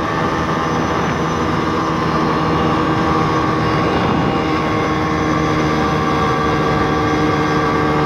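Pit bike's YX 160cc single-cylinder four-stroke engine held near full throttle on a top-speed run, its pitch steady and high, with wind rushing over the helmet-mounted microphone.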